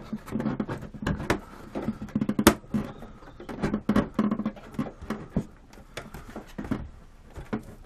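A model aircraft canopy being pushed and worked into place on the fuselage: a run of irregular clicks, taps and rubbing, with one sharp knock about two and a half seconds in.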